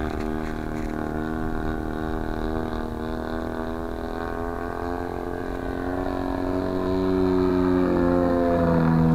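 Engine of a 40% scale Sbach RC aerobatic airplane running in flight, a steady drone that rises in pitch and grows louder over the last few seconds.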